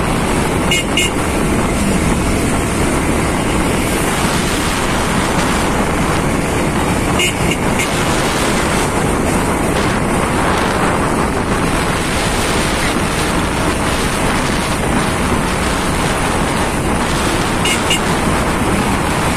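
Steady rushing road and wind noise from a moving vehicle on a road. Short high horn beeps sound three times: about a second in, about seven seconds in, and near the end.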